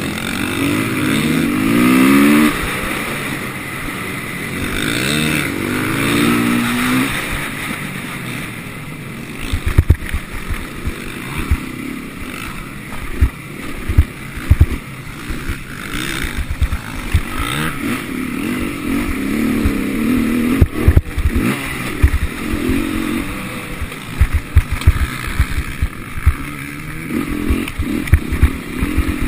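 KTM 450 SMR's single-cylinder four-stroke engine, heard from the rider's helmet, revving up in repeated rising sweeps under acceleration and dropping off between them. From about ten seconds in there are many short low thumps.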